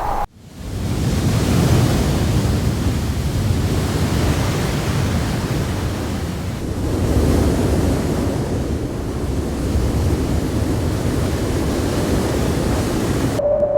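Storm noise from the thunderstorm: a steady rushing roar of wind and heavy rain, with wind buffeting the microphone into a deep rumble. Near the end it cuts off abruptly, and a rising electronic tone begins.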